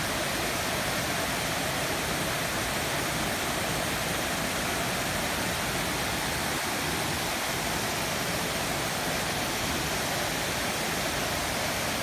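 Water from a man-made cascade falling over tiered rock ledges and splashing into a pool, a steady rushing.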